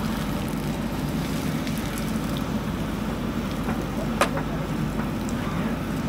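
JCB 3DX backhoe loader's diesel engine running steadily as the backhoe arm digs and dumps soil. A single sharp knock comes about four seconds in.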